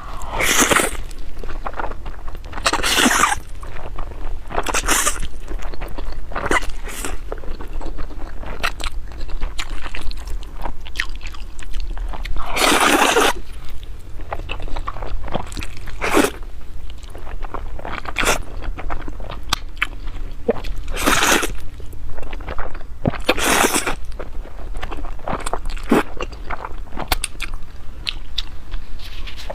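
Close-miked eating: loud crunching bites every few seconds, with wet chewing clicks between them.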